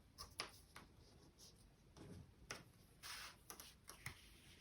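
Faint handling sounds: light clicks and a brief rustle of fabric as a cotton strip holding a metal D-ring is positioned on a bag panel.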